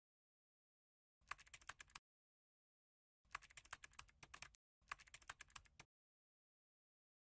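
Typing sound effect: three quick runs of key clicks, separated by dead silence, keyed to title text appearing letter by letter.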